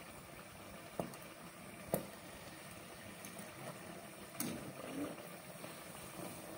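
Samosas deep-frying in a pot of hot oil: a faint steady sizzle and bubbling, with a few light clicks of a fork against the metal pot as they are turned.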